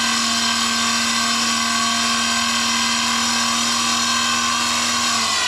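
Variable-speed Hamilton Beach motor driving a Levin 8mm jeweler's lathe, running with a steady whine. About five seconds in it is switched off and the pitch falls as the motor and spindle spin down.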